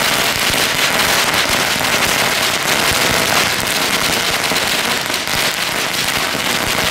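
A Geisha 500-shot firecracker string going off on the ground: a continuous rapid rattle of hundreds of small bangs, too fast to count, without a break.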